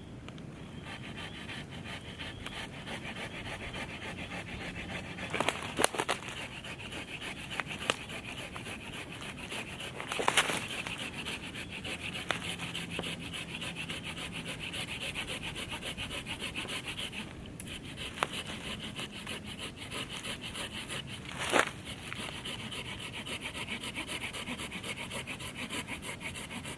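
Silky F180 folding handsaw sawing through a tree trunk in steady, rapid strokes, with a few sharper knocks along the way.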